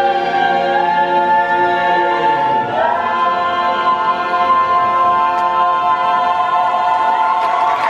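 An a cappella vocal ensemble sings long held chords, rising to a new chord about three seconds in and sustaining it as the closing note. Applause breaks out right at the end.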